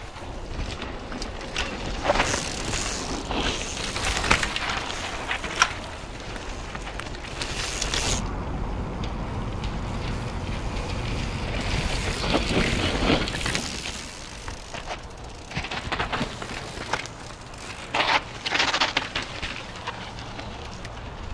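Mountain bikes descending a steep, loose dirt trail: knobby tyres crunching and skidding over dirt and rocks, with the bikes clattering and rattling over bumps. The sound changes abruptly a few times.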